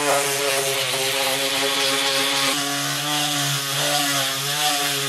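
Black & Decker mouse sander running steadily while sanding a flat wooden board: a constant motor hum with the scratchy hiss of the sanding pad on the wood, shifting slightly in pitch about two and a half seconds in.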